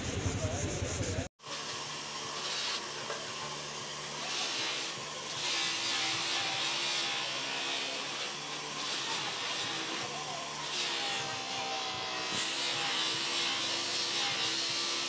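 Plastic car headlight lens being buffed against a white buffing wheel spun by an electric bench polishing motor: a rasping friction hiss over the motor's running, swelling and easing as the lens is pressed harder or moved across the wheel. It begins after an abrupt cut about a second in.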